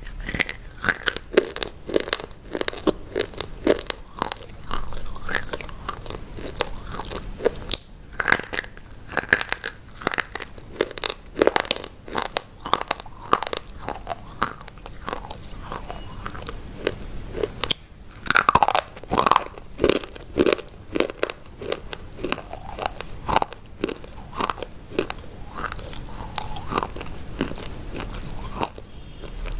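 Crunching into a microphone held close to the mouth as hard, brittle white sticks are bitten off and chewed: a long run of sharp crunches, thickest about twenty seconds in.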